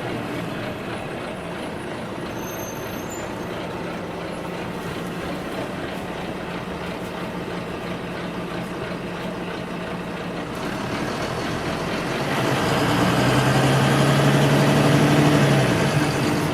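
Interior of a city bus on the move: a steady drone of engine and road noise that grows louder about twelve seconds in, with a strong low hum, then drops back just before the end.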